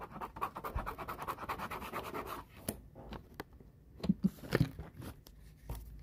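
Stylus tip tapping and scratching across a smartphone touchscreen: faint quick ticks and rubbing, with a short lull just past the middle before a few more taps.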